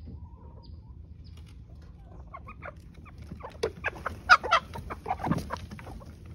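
A flock of backyard hens clucking as they crowd out through the coop's pop door; the calls start about two seconds in and grow thicker and louder toward the middle.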